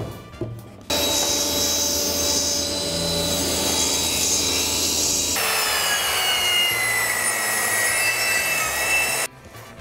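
Power saws cutting boards: a table saw running through a cut, then, after an abrupt change about five seconds in, a handheld circular saw on a guide rail cutting, its pitch sagging slowly under load. The sawing stops suddenly shortly before the end.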